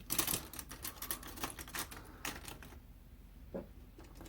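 Plastic mechanical pencils clicking and clattering against each other and the tabletop as a handful of Pentel P209s is handled and set down: a quick run of clicks that thins out, with one last click near the end.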